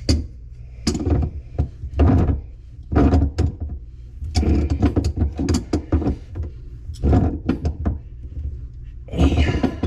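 Irregular clunks, knocks and rattles of plumbing parts and tools being handled in a cramped under-sink cabinet.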